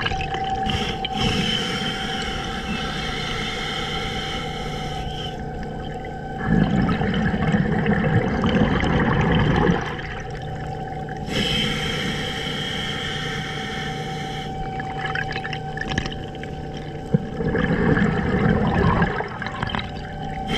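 Scuba diver breathing through a regulator underwater: a hissing inhalation, then a louder bubbling exhalation, twice, about ten seconds per breath, over a steady low hum.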